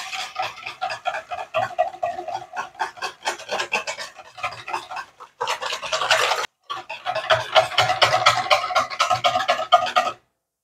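A wire whisk beating eggs and oil in a stainless steel bowl: rapid scraping and clicking strokes of the wires against the metal, with the bowl ringing. There are two brief pauses midway, and the whisking stops near the end.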